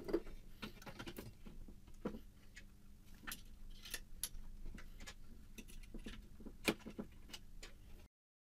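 Irregular small clicks, taps and metallic clinks of a bi-xenon projector's metal bracket being handled and seated in a plastic headlight housing, with two sharper knocks, one just after the start and one near the end. The sound cuts off just before the end.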